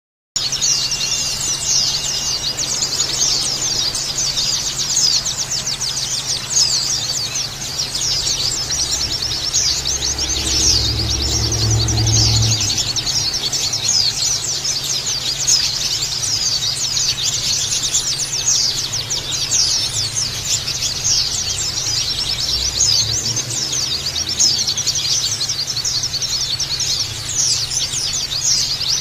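White-eyes (pleci) singing in a dense, unbroken stream of rapid high chirps and trills, with several birds overlapping.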